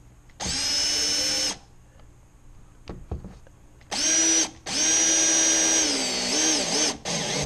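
Heat gun's electric fan motor whining in short on-off runs: about a second, then a longer run with a brief break, the pitch dipping and wobbling near the end before it cuts off.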